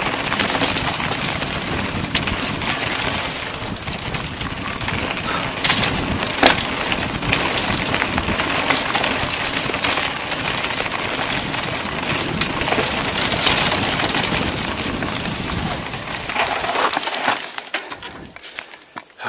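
CTM Ridge Xpert mountain bike rolling fast over a dirt trail: a steady rush of tyre and wind noise with constant rattling and sharp clicks and knocks from the bike over bumps. It dies away in the last couple of seconds as the bike slows to a stop.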